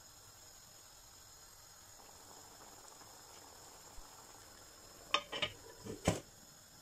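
Tomato seafood sauce simmering faintly in a frying pan, then a glass pan lid with a metal rim set down on the pan: a few quick clinks about five seconds in and one louder knock about a second later as it settles.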